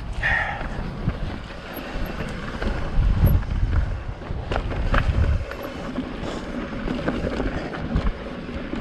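Wind buffeting the microphone in gusts, a low rumble that swells and fades. A few sharp clicks or rattles sound around the middle.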